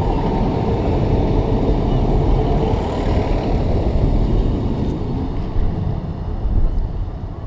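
Class 150 Sprinter diesel multiple unit moving along the platform: a steady low rumble from its diesel engines and wheels, easing slightly near the end.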